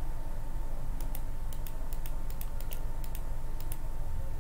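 A quick, irregular run of light computer clicks, a dozen or more keyboard keys or mouse buttons being pressed, starting about a second in, over a steady background hum.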